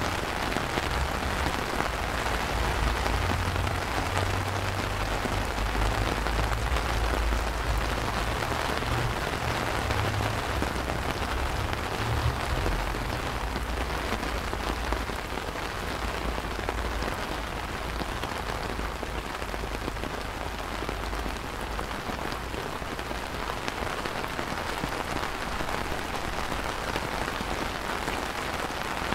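Steady rain falling on wet stone paving and garden trees, an even dense patter throughout, with a low rumble underneath through the first half.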